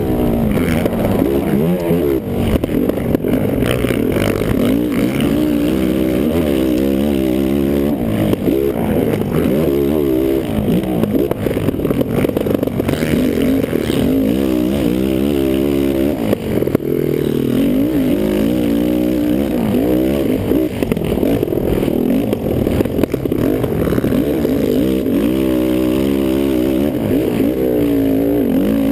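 Kawasaki KFX450R quad's single-cylinder four-stroke engine under hard riding, its pitch rising and dropping back again and again as it revs up and falls off.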